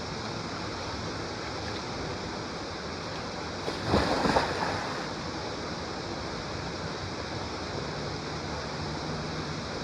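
Steady rush of flowing water, a river or waterfall, with a brief louder surge about four seconds in.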